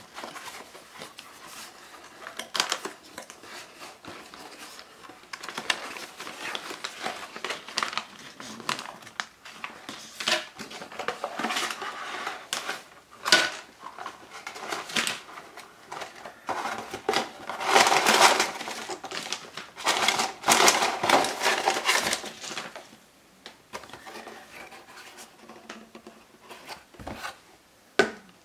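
Plastic gum pouches crinkling and rustling as they are pulled out of a cardboard box and dropped onto a pile, with the cardboard being handled. The crinkling is loudest in the middle stretch and quieter near the end.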